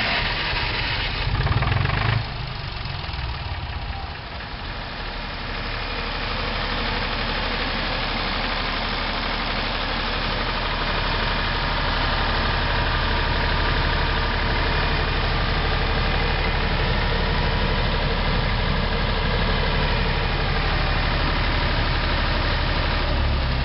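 Hunting-Hivolt 12 kW diesel generator started on its hydraulic starter: a loud burst for about two seconds as the released starter spins the engine and it fires. The diesel then settles into steady running, coming up to its governed 1500 rpm over the next few seconds.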